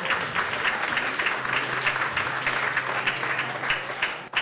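Audience applauding, a dense patter of many hands clapping that thins to a few last separate claps near the end.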